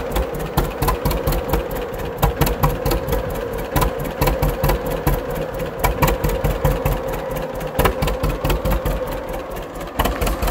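A 1939 John Deere Model A's two-cylinder engine idling with the tractor standing still, running in an even, steady beat of exhaust pulses.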